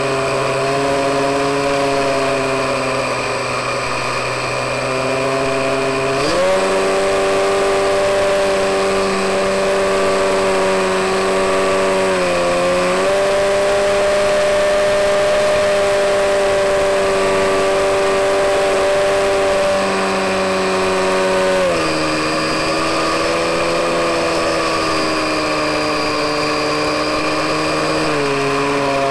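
Electric motor and propeller of a Skywalker 168 FPV plane humming steadily in flight over air rush, the pitch changing in steps with the throttle: up about six seconds in, a brief dip midway, and down twice in the last third.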